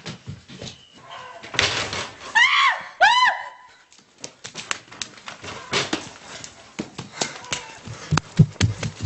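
Two short, high-pitched screams, each rising then falling in pitch, followed by a run of sharp knocks and quick footfalls.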